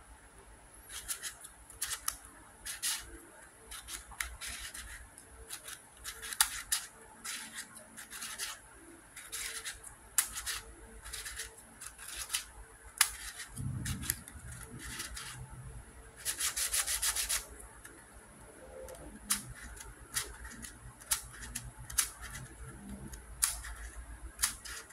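A small plastic Ivy Cube twisty puzzle being turned by hand: a string of short, irregular scraping clicks as its curved pieces slide past each other, with a denser run of quick turns lasting about a second just past the middle.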